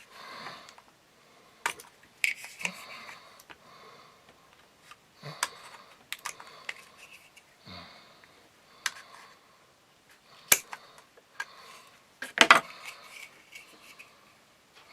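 Hands working with small tools and a sheet of plastic: scattered sharp clicks and taps with light rustling between them, and a quick cluster of louder knocks near the end.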